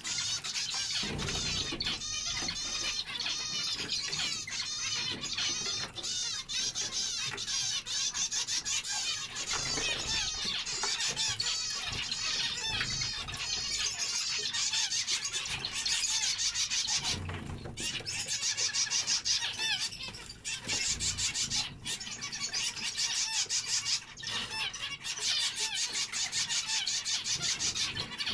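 A flock of zebra finches calling and singing together: a dense, near-continuous chatter of short, rapid, nasal chirps and beeps from many birds at once.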